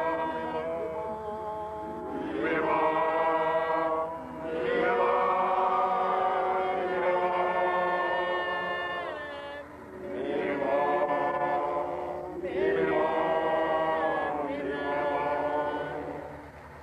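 Chanted singing held as long notes, in phrases of a few seconds each with brief breaks between.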